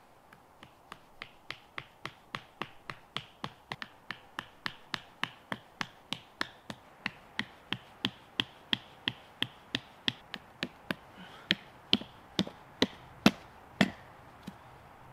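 Tent pegs being knocked into the ground: a long run of sharp, evenly spaced taps, about three a second, the loudest few near the end.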